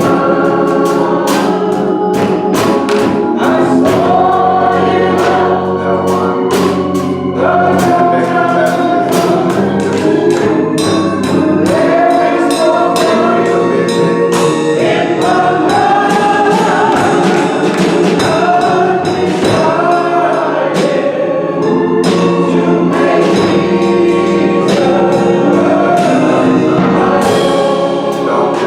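Church choir singing a gospel song with instrumental accompaniment and a steady beat.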